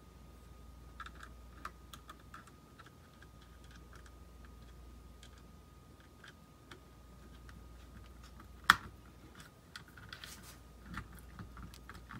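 Light scattered clicks and ticks of a small screwdriver and tiny screws being fitted into the plastic shell of a Hubsan Zino drone. One sharp click comes about two-thirds of the way through, and a brief rustle follows shortly after.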